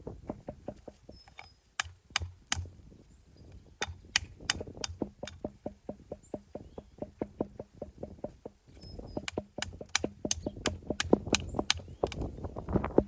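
Hammer striking stone: quick runs of sharp, ringing blows, several a second, with short pauses between runs, as stone is knocked into shape for a stone wall.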